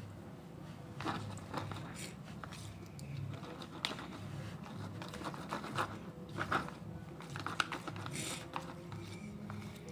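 Irregular small crinkling and clicking handling noises, scattered through the stretch, with a few sharper clicks, as hands work slime-making materials and their containers.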